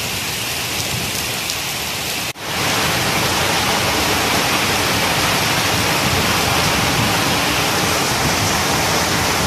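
Heavy rain falling in a steady downpour. About two seconds in, the sound drops out for an instant and comes back louder and fuller.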